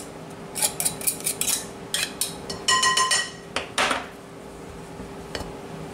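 Metal pastry blender cutting through pie-crust dough in a mixing bowl: a quick run of clinks and scrapes as the blades strike the dough and the bowl, with one ringing metallic clink about three seconds in. The strokes die away after about four seconds, leaving a faint steady hum.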